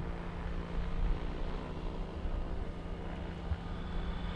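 Aircraft engine running steadily: a low rumble with a steady hum, joined by a faint high whine near the end.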